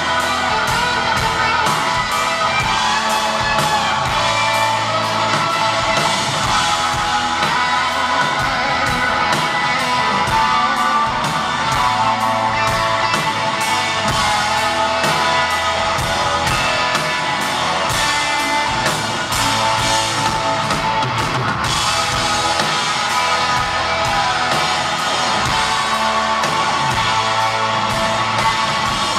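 Live rock band playing an instrumental break, with an electric guitar lead over a steady drum beat and bass.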